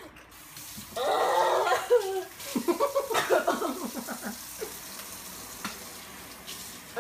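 A person groaning and then gagging in a rapid run of heaves while bent over a kitchen sink, a reaction to a disgusting drink. From about halfway in, a kitchen tap runs water steadily into the sink.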